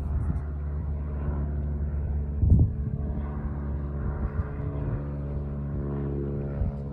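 Piston engine of a single-engine propeller plane flying overhead, a steady droning hum. A brief low thump stands out about two and a half seconds in.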